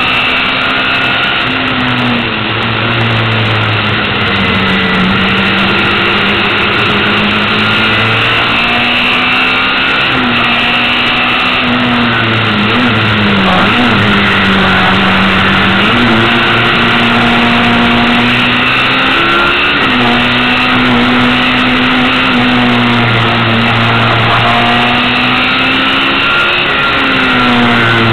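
Lola T496 racing car's engine heard from onboard at full race effort. Its pitch climbs through each gear and drops at the shifts every few seconds, with quick blips near the middle as it slows for a bend.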